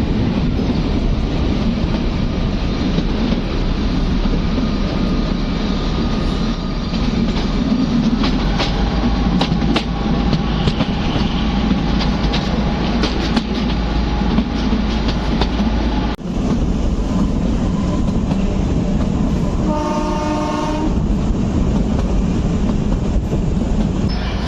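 Narrow-gauge Kalka–Shimla toy train running, with a steady rumble and wheels clattering over the rails. Its horn sounds once, for about a second, near the end.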